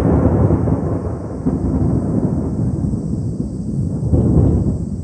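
Thunder: a loud rolling rumble that swells again about four seconds in, then dies away near the end.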